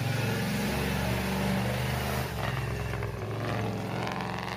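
Engine of a monster-truck school bus, an old yellow school bus body on giant tyres, running at low revs as it moves slowly. A steady low engine drone that eases off a little near the end.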